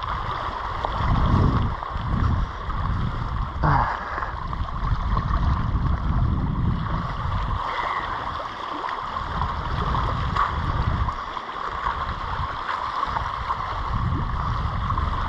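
Sea water washing and swirling around shoreline rocks, with uneven low rumbles of wind on the microphone and a single knock about four seconds in.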